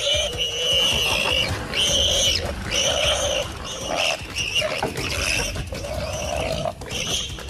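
Warthog squealing in distress while held by a leopard: a string of loud, high squeals, each about half a second to a second long, one after another.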